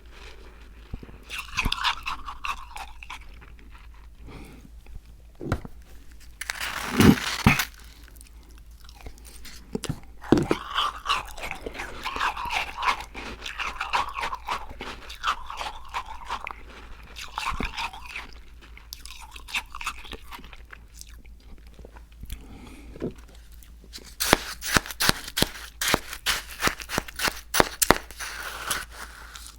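Close-miked mouth sounds of eating a frozen Icee slushie: crunching ice and chewing. There is a loud burst of crunching about seven seconds in, softer wet chewing after it, and a fast run of sharp crunches in the last five seconds.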